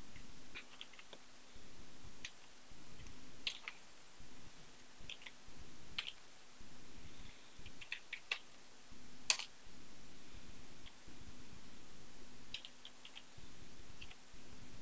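Scattered keystrokes on a computer keyboard: single clicks with pauses between them, the loudest about nine seconds in, over a faint steady low hum.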